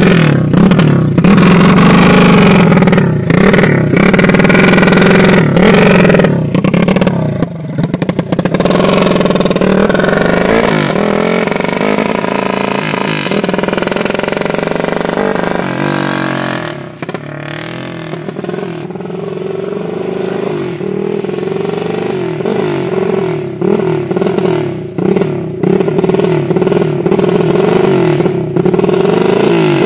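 Yamaha Jupiter Z single-cylinder four-stroke motorcycle running with the silencer insert removed from its exhaust, giving a raspy "engker-engker" note. It revs as it pulls away, drops to its quietest a little past the middle, and grows louder again as it comes back.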